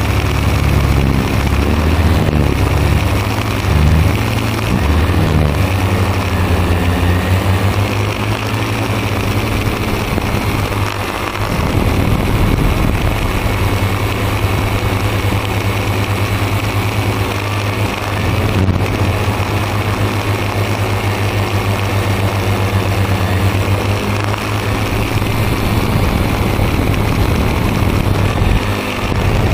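Multirotor drone's electric motors and propellers whirring loudly and steadily, heard from a camera on board. The pitch shifts up and down over the first few seconds, then settles.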